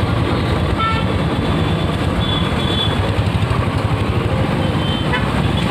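Motorcycle engine running steadily close to the microphone while riding through street traffic, with a fast low pulsing throughout.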